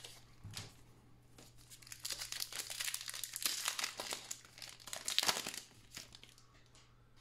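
Foil wrapper of a Panini NBA Hoops trading-card pack crinkling and tearing as it is pulled open by hand. Most of the crackle comes between about two and five and a half seconds in, loudest just after five seconds.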